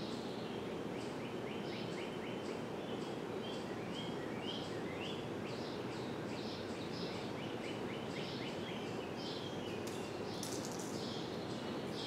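Hunter Infiniti ceiling fan running on high, a steady whoosh of moving air and motor hum. Birds chirp over it in quick, irregular runs of short calls.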